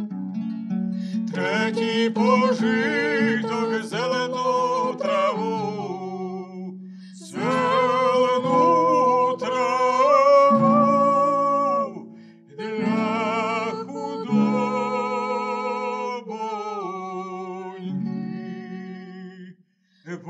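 A man and a young woman singing together, accompanied by plucked strings on a lute-like instrument. The phrases are sung with vibrato and broken by short pauses.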